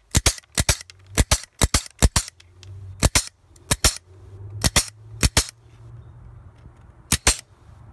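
Pneumatic wire cutters snapping through the cross-wires of 14-gauge welded wire mesh, one cut after another. There are about eleven sharp double snaps, coming about every half second at first and then further apart, with the last one near the end.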